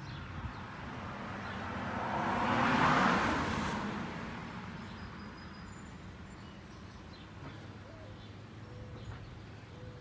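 A 1.5-ton Mitsubishi Electric ductless mini split outdoor unit runs with a steady low hum from its fan and compressor. A vehicle passes on a wet road, swelling to its loudest about three seconds in and then fading away.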